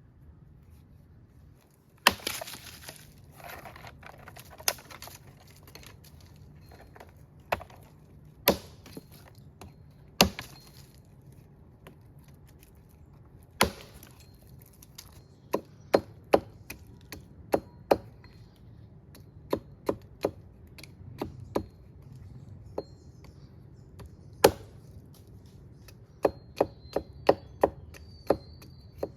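Wood being chopped: irregular sharp strikes, a few followed by a brief splintering crackle, with a quicker run of strikes near the end.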